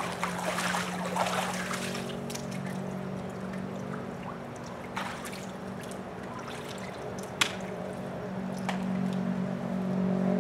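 Water trickling and splashing in a partly filled above-ground pool, busiest in the first two seconds, over a steady low hum. A few sharp clicks come later, the loudest about seven seconds in.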